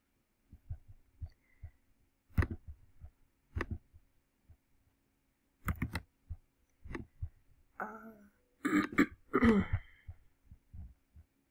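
A few sharp mouse clicks and desk knocks spaced a second or more apart during computer work, and about eight seconds in, a couple of brief throat sounds from a person.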